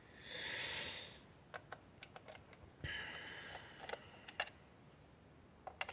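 Faint handling noises of small objects on a desk: a short scraping rustle at the start and another about three seconds in, with scattered light clicks between and near the end.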